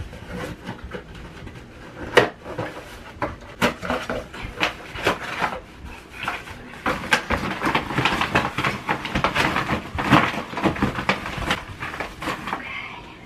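A thin cardboard product box being pulled apart and flattened by hand: crackling, tearing and rustling, with sharp snaps about two seconds in and again a second or so later.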